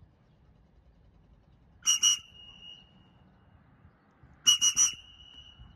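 Whistle blown in short blasts, two quick ones about two seconds in and three more near the end, each trailing off in a thin steady tone; a recall signal to a free-flying bird.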